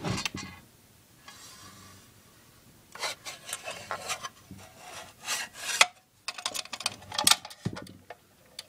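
Rubbing and scraping handling noise as a hand moves among the test leads inside a metal instrument carrying case, in irregular bunches with a sharper knock about six seconds in.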